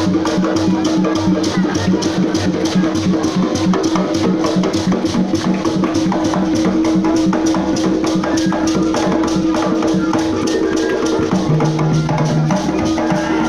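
Percussion music for the Bagishu Imbalu dance: drums and rattles beating a quick, even rhythm, about four strokes a second, over a steady held low tone.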